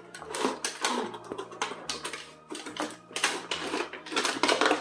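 Toy packaging being opened by hand: cardboard and plastic rustling and clicking in quick, uneven bursts.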